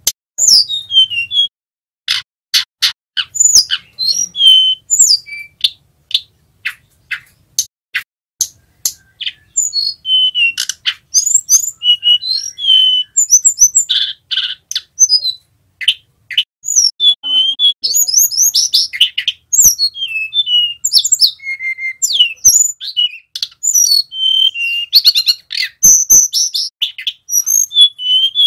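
Male hill blue flycatcher singing: runs of sharp clicks for the first several seconds, then a fast, continuous jumble of high whistled notes, slurs and trills with clicks mixed in.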